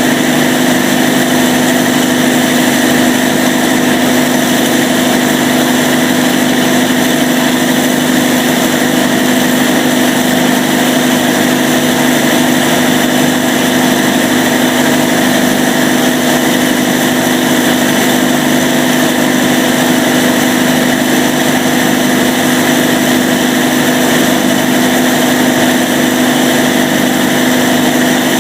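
Cummins KTA38-G4 V12 diesel generator set running steadily at a constant speed, with a loud, even drone and a strong steady hum.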